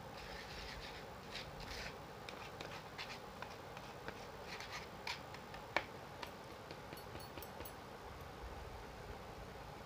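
Hand-held kitchen strainer being shaken and tapped to sift baking soda into the batter bowl: a run of small scratchy taps and rustles, one sharper click about six seconds in, then only a few faint ticks.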